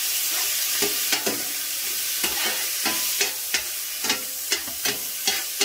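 Crab meat frying in garlic oil in a stainless steel pan, sizzling steadily while a utensil stirs it, knocking and scraping against the pan about twice a second.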